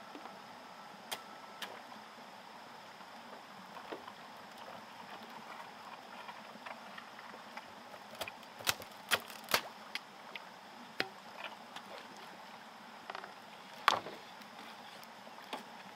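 Hollow knocks and clacks of bamboo poles striking one another as a bamboo raft is handled and stepped on: a couple of single knocks early, a quick run of several about halfway through, and the loudest knock near the end, over a steady outdoor hiss.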